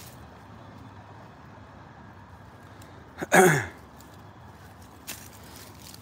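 A man's brief, breathy sigh, falling in pitch, about three seconds in, over a faint steady outdoor background with a couple of soft clicks.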